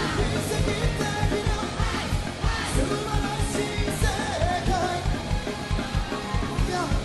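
Upbeat Japanese rock-pop song with a steady drum beat and band, with some singing.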